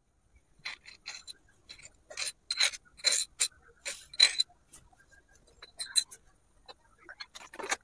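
A metal spoon scraping and tapping against a small clay dish as chopped onion, tomato and green chilli are pushed off it into a clay bowl of noodles: a string of light, irregular scrapes and clicks, busiest in the middle.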